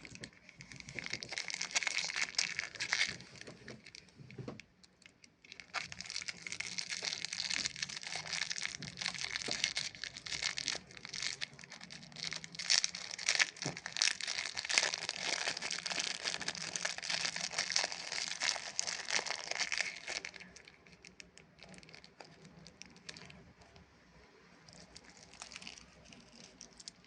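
Close-up crinkling and crackling of a Chupa Chups lollipop's plastic wrapper being handled, dense for about twenty seconds, then much quieter.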